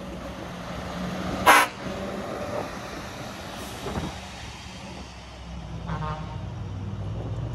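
Scania V8 truck engines running at low revs as the trucks pull away. About one and a half seconds in comes a short, loud burst, the loudest sound here, and around six seconds in a brief higher-pitched toot.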